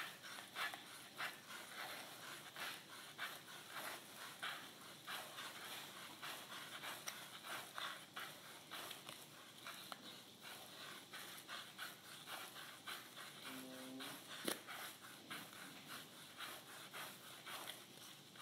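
Faint, soft rustling of yarn being wound round and round a cardboard pom-pom template by hand, repeating about twice a second.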